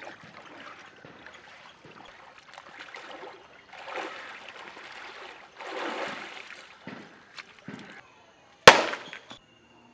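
Water splashing and sloshing as a man wades into a pond and bathes, with louder splashes about four and six seconds in. Near the end comes a single sharp knock, the loudest sound of all.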